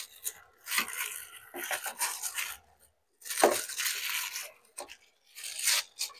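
Plastic bag gloves crinkling and rustling in irregular bursts as hands work lumps of rice-flour dough.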